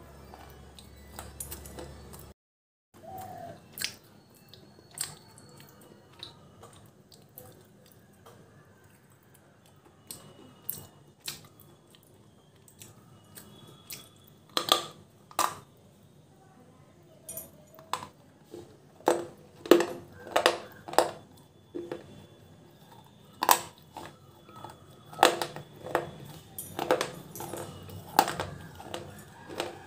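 Close-up crunching of a chunk of red slate bar being bitten and chewed: sharp, brittle cracks, scattered at first and coming fast and loud in the second half.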